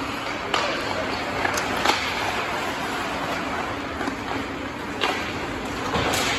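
Ice hockey play: a steady hiss of rink noise with several sharp clacks of sticks striking the puck, about four in all.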